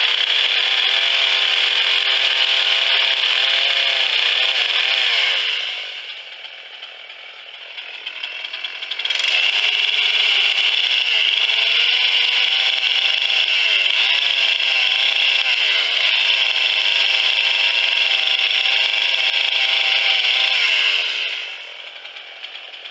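Husqvarna chainsaw cutting wood at full throttle, its engine pitch dipping briefly as the chain bites. About five seconds in it drops to idle for a few seconds, then revs up and cuts again, falling back to idle near the end.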